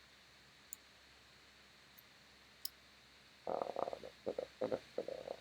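Three faint, short clicks in the first few seconds, then about two seconds of low, choppy mumbling from a man's voice.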